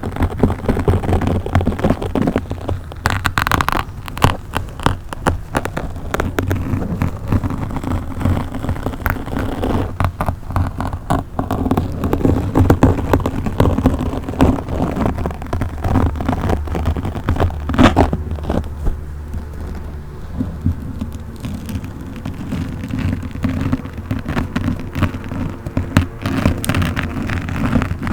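Fingers scratching and rubbing directly on a microphone, making dense, irregular crackles and pops over a heavy low rumble.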